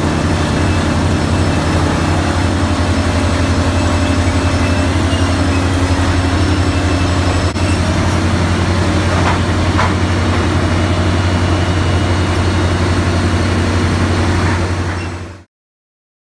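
Electric woodworking power tool running steadily on a hardwood slab, a constant low hum with a hiss above it, then shutting off about 15 seconds in.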